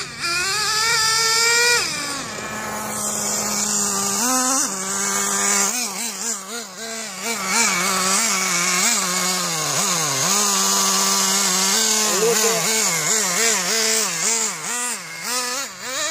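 Traxxas Jato nitro RC stadium truck's small two-stroke glow engine running at speed, its pitch holding steady for stretches and then rising and falling quickly as the throttle is worked, with a high hiss above it.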